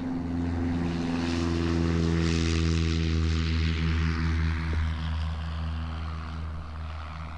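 Light propeller aircraft engine running steadily, its sound growing louder over the first few seconds and then fading.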